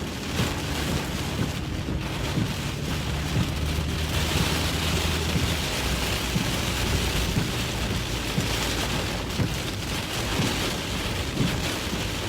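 Heavy rain pelting a moving vehicle, heard from inside the cabin, as a steady hiss that strengthens a few seconds in, with a low hum of engine and tyres on the wet road under it.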